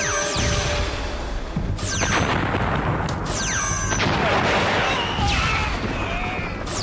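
Sci-fi laser-blaster sound effects, each a quick falling zap, fired in volleys a second or two apart over the rumble of explosions.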